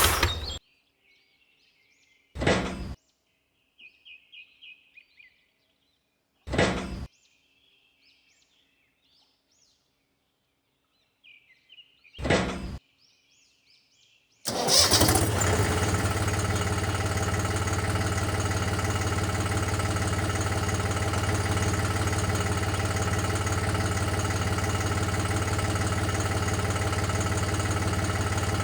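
Birds chirping with three brief loud bursts, then about halfway through a small motor comes in suddenly and runs steadily with an even hum.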